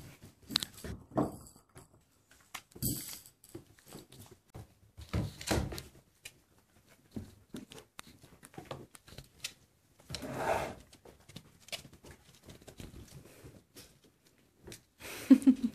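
Puppies chewing on raw carcasses and moving about, with scattered clicks, knocks and rustles. A short, loud pitched call near the end.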